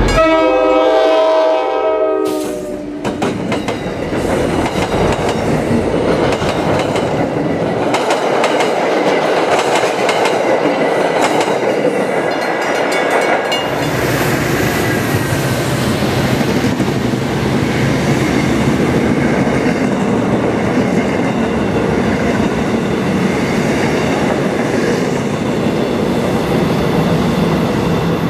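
A diesel locomotive's multi-note air horn sounds a chord for about two seconds and cuts off. A commuter train follows with a steady rush of wheels on rail and a run of sharp clicking wheel beats. About halfway through, a deeper rumble joins in as the coaches pass.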